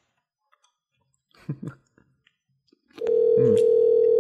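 Telephone dial tone on the show's phone line: one steady tone that comes in about three seconds in, after the called party has hung up. A brief voice sounds faintly under it.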